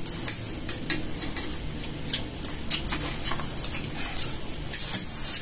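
Light, irregular clatter and clicks of tableware: cutlery and dishes being handled.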